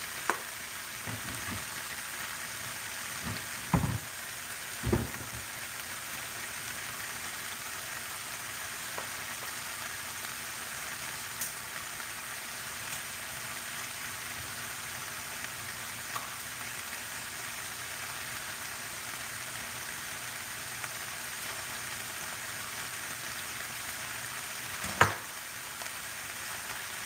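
Saltfish, shrimp and vegetable stir-fry sizzling gently and steadily in a skillet on low heat. Two sharp knocks come about four and five seconds in, and a louder one near the end.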